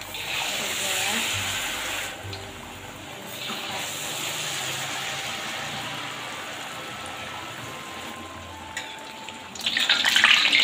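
Hot cooking oil in a wok sizzling steadily, then a sudden loud burst of sizzling near the end as battered banana goes into the oil.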